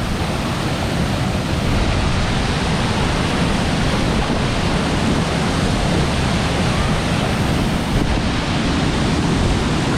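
Rushing stream water and a nearby waterfall pouring onto rocks, a loud, steady rush with no breaks.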